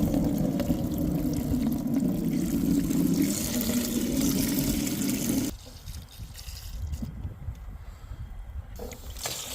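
Water pouring steadily, stopping abruptly about five and a half seconds in; after that there is a fainter trickle.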